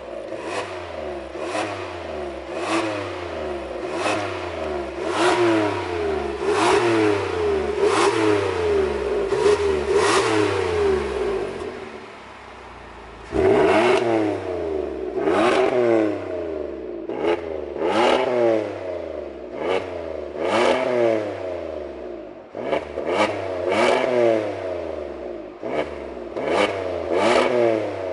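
Hyundai Palisade 3.8 V6 with an aftermarket dual variable exhaust, revved in repeated blips about once a second with the exhaust valves closed. After a short idle a little after ten seconds in, it is blipped again with the valves open, the revs coming quicker near the end.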